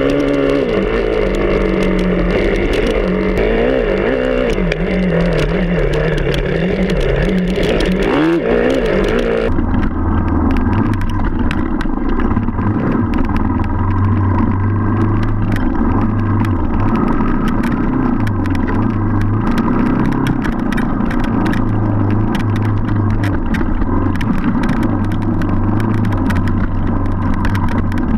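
Enduro dirt-bike engine heard from the bike itself, its pitch rising and falling as the throttle opens and closes. About a third of the way through the sound changes abruptly to a lower, steadier engine note with frequent ticks and knocks.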